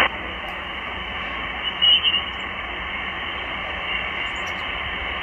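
Steady shortwave hiss from a Malachite DSP SDR receiver's speaker, tuned to the 20-meter band in upper sideband with no voice coming through. The hiss drops suddenly at the start as the receiver's noise reduction engages, and a brief louder tone blip comes through about two seconds in.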